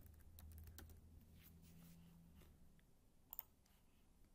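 Near silence: a few faint computer keyboard keystrokes over a low hum, with a sharper double click about three and a half seconds in.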